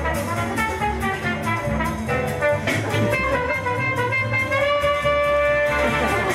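Band music playing with a steady beat, ending on a long held note near the end.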